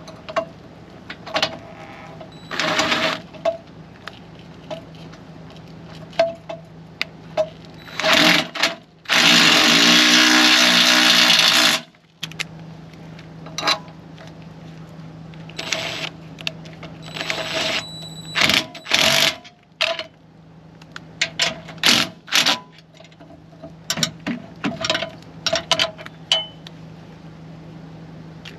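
Cordless DeWalt drill/driver run in short bursts and one longer run of about three seconds, driving the bolts that fasten a stabilizer jack to a camper's steel frame, with small knocks and clanks of metal between runs.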